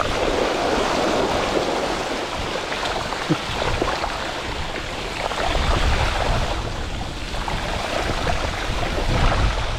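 Gravel bike tyres rolling through standing water on a flooded trail: a steady splashing rush, with wind buffeting the microphone as a low rumble that swells twice.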